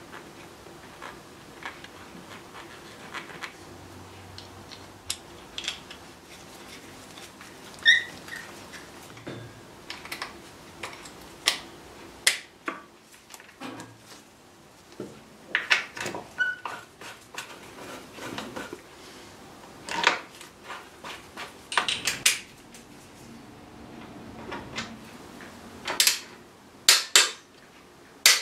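Scattered metal clicks, clinks and knocks as bolts and the rear brake master cylinder and footrest bracket are handled and bolted onto a Suzuki Hayabusa, getting busier toward the end with quick sharp clicks as a bolt is tightened with a ratchet. A brief high squeak sounds about a third of the way in.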